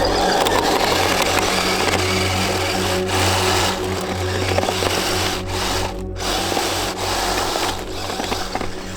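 Electric motor and geared drive of a Kyosho Blizzard SR radio-controlled tracked snow vehicle whirring steadily, with a few brief dips.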